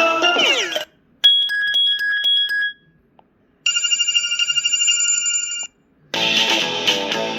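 A Kyocera DuraForce Pro phone's speaker playing its preloaded ringtones in turn. First the end of a tune with a falling sweep, then a short repeated two-note beep, then a warbling telephone-style ring, and about six seconds in a new tune starts. Each is cut off by a brief silence.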